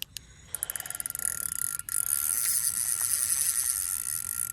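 Fishing reel clicking rapidly and steadily, a fast ratchet-like ticking that starts about half a second in and settles to an even rate, as line runs through the reel while a hooked catfish is played.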